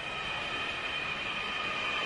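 Distant passenger jet coming in to land: engine whine with several steady high tones over a broad rushing noise, slowly growing louder as it approaches.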